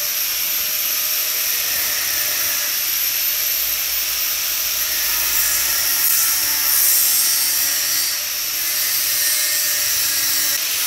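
Angle grinder with a cut-off disc running steadily, cutting into the rusty steel housing of a car's active-sound exhaust actuator, with a brief dip in level about eight seconds in.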